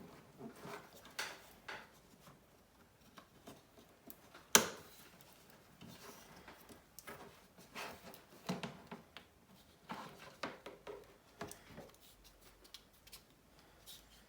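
Scattered small clicks and taps of tools and small phone parts being handled on a work surface, with one sharp click about four and a half seconds in.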